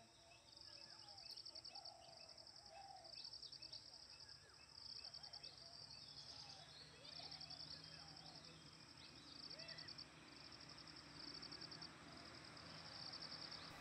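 Faint rural morning ambience: an insect's high pulsed trill, repeated in bursts about a second long every second or two, with scattered bird chirps.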